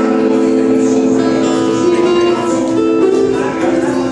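Live acoustic guitar with a second guitar, playing held, ringing notes; the chord changes a couple of times about halfway through.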